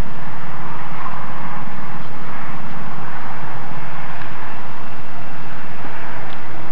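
A steady engine-like drone with a rushing hiss over it, unchanging throughout.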